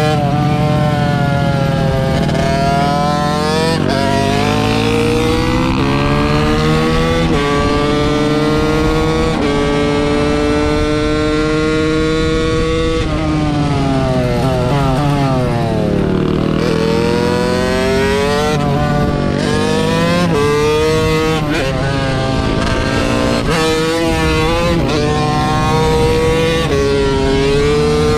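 Small motorcycle engine under way: its pitch climbs steadily and drops sharply several times, as if shifting up through the gears. About halfway through it falls away and climbs again, then rises and falls in quicker, shorter spells near the end.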